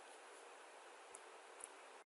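Near silence: a faint steady hiss, with two faint clicks, one just after a second in and one near the end.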